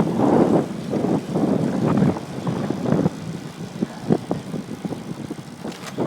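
Wind buffeting the microphone while riding a bicycle: an uneven rushing rumble that swells and fades in gusts, with a few short knocks.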